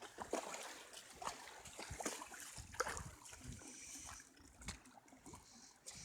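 Legs wading through moving floodwater: quiet, irregular sloshing and splashing as each step pushes against the current.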